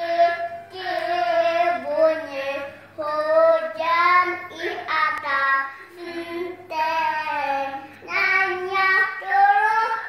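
A young girl singing unaccompanied, in held notes with short breaths between phrases.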